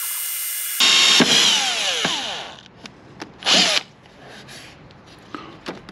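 Cordless drill boring a hole through the plastic rim of a motorcycle top case: the drill runs steadily, then its whine falls in pitch and dies away about two and a half seconds in. A short noise near the middle, then only faint small clicks.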